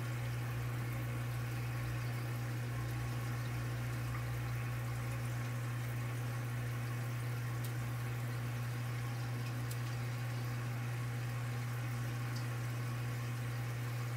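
A steady low hum over a constant hiss, unchanging throughout, with a few faint ticks.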